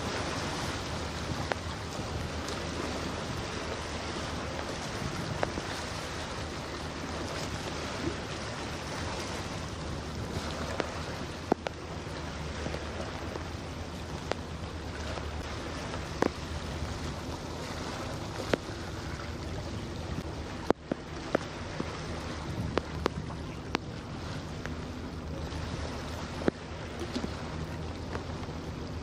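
Waterside ambience: wind on the microphone and washing water, over a steady low engine hum from boat traffic. A few sharp clicks or knocks are scattered through it.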